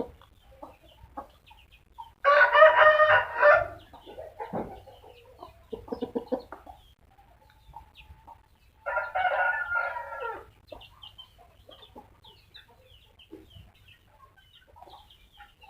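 Rooster crowing twice, each crow about a second and a half long, with fainter short sounds between.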